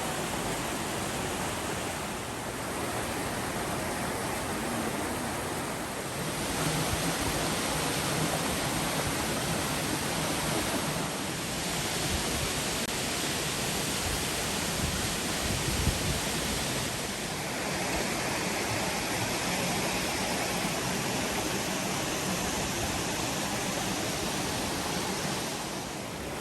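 Steady rush of falling water from Minoh Falls, an even, unbroken noise whose tone shifts slightly a few times.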